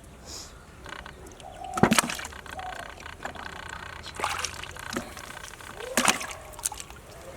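Irregular splashing and sloshing in shallow water, with two loud splashes, about two seconds in and about six seconds in.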